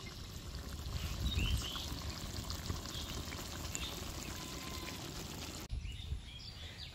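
Chicken and potato curry simmering in a large aluminium pot, a steady bubbling and sizzling. It gives way to quieter outdoor background about six seconds in.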